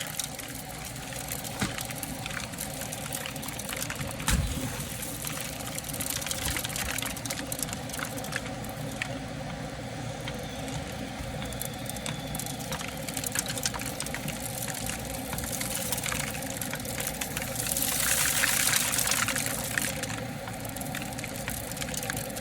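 Dryer-vent cleaning vacuum running steadily, with lint and debris ticking and rattling as it is pulled through the duct and hose. A single low thump about four seconds in, and a louder rush of air near the end.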